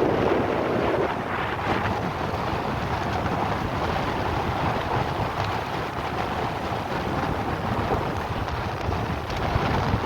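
Motorboat running fast across open water, with heavy wind buffeting the microphone as a steady rushing noise.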